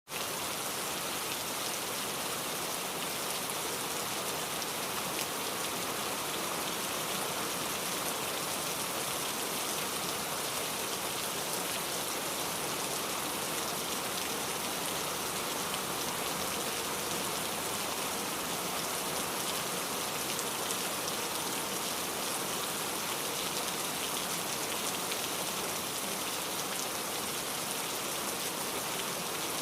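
Steady rain falling, an even hiss of many raindrops with no pauses.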